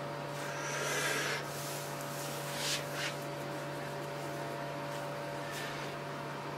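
Short rustles and scrapes of hands handling things around an egg tub, about a second in, near three seconds and again near the end, over a steady electrical hum with a fixed low tone.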